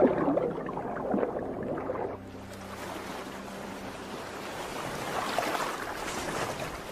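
Soundtrack music with low held notes fades out about two seconds in, leaving a steady wash of sea and wind noise.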